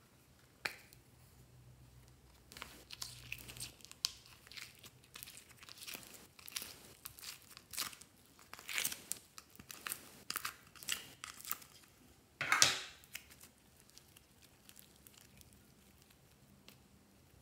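A plastic compact case clicks open, then granular foam clay is pulled, squeezed and rolled by hand, giving a run of small crackling, crinkling sounds with one louder crackle near the end.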